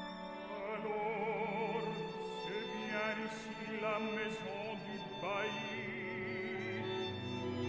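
Operatic tenor singing with wide vibrato, entering about a second in over an orchestra with strings.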